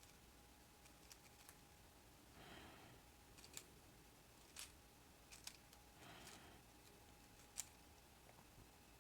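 Faint, sparse plastic clicks of a 3x3 speed cube's layers being turned, irregular, the sharpest one about three quarters of the way through. Two soft rushing sounds come in between, around a third and two thirds of the way in.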